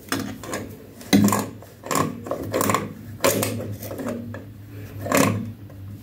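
Clinks and rubbing of metal parts as a hand works and tightens the chrome fittings under a washbasin, a sharp knock every half second or so, over a steady low hum.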